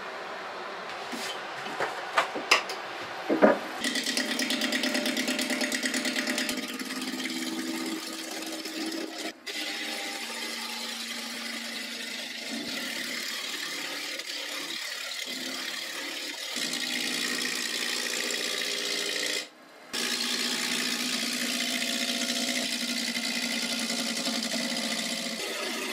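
A few sharp knocks, then a gouge cutting a spinning wood blank on an Axminster AW355 wood lathe: a steady shaving hiss of the cut over the lathe's running, broken off briefly twice.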